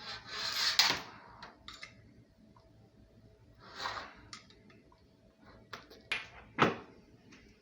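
Handling noise from fitting faucet connections: a rustling scrape in the first second, another near the middle, and a few sharp clicks and knocks, the loudest a knock near the end.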